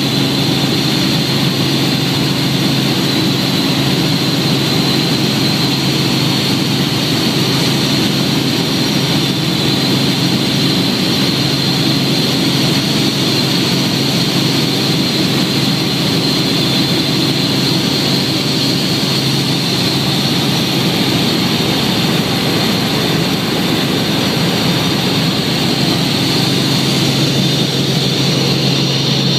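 Helicopter cabin noise heard from inside the cabin in steady cruise flight: a constant loud drone of rotor and turbine with a low hum and a high whine, holding steady throughout.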